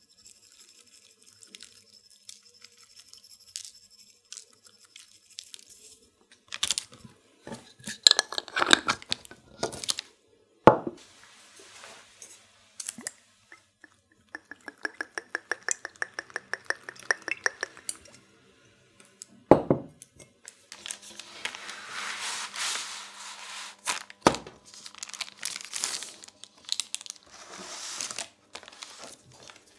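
Dried herbs shaken from a glass jar with faint ticks, then sharp knocks of glass set down on a wooden counter. Olive oil glugging from its bottle in a quick, even pulse for a few seconds, another knock, then parchment paper crinkling as it is handled.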